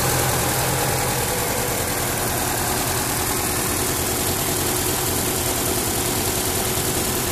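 An old carburettored Toyota Corolla's four-cylinder engine idling steadily, heard close up in the open engine bay.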